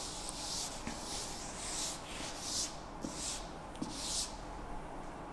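Chalkboard duster rubbing across a blackboard in repeated back-and-forth wiping strokes, each a short swish, stopping a little after four seconds in.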